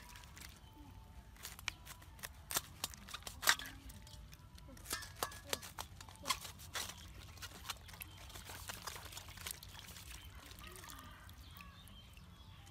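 Small kitchen knife cutting through a raw cabbage head in a steel bowl: a quick run of crisp crunching snaps and clicks that thins out after about seven seconds.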